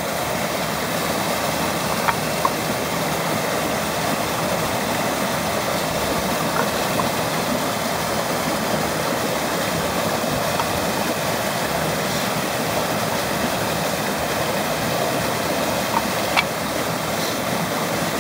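Waterfall rushing steadily, with a few faint clicks of trading cards being handled.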